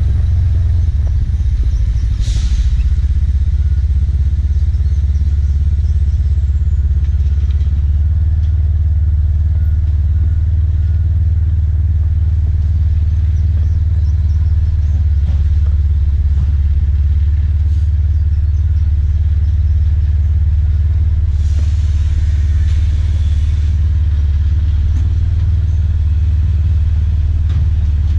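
Side-by-side UTV engine running steadily while driving on a dirt road, heard from on board as a loud low rumble. A brief clatter comes about two seconds in, and a short hiss later on.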